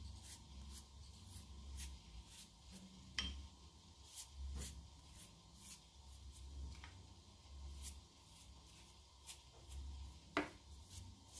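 Faint, light brushing and dabbing: a pastry brush applying egg wash to unbaked meat pies, in soft strokes about twice a second, with two sharper clicks, about three seconds in and near the end.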